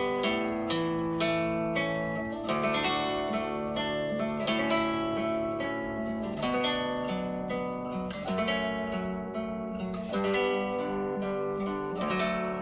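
Background music played on plucked strings, likely acoustic guitar, with notes picked in a steady flowing pattern.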